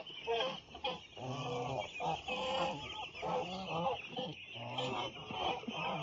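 Farm poultry calling over and over, a string of short pitched calls coming about one a second.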